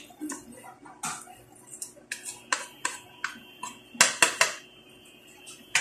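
Wooden spatula stirring and turning chunks of pork in a stainless steel pot, with irregular scrapes and knocks against the metal; two sharper knocks come about four seconds in.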